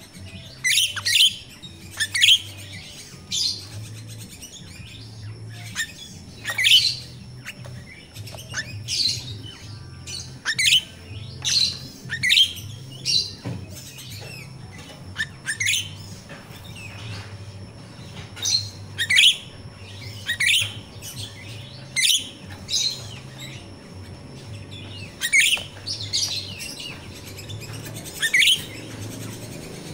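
Grosbeak starling (finch-billed myna) calling: about twenty short, sharp, high-pitched chirps, roughly one a second at an irregular pace.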